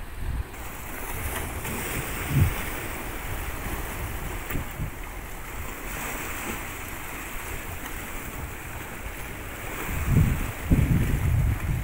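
Small sea waves washing against rocks at the water's edge, with gusts of wind buffeting the microphone, strongest near the end.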